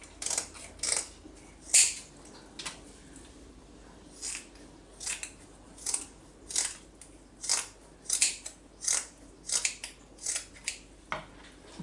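Household scissors snipping through the fin rays along the edge of a skinned sole: a series of short, sharp snips, about one or two a second, with a brief pause about three seconds in.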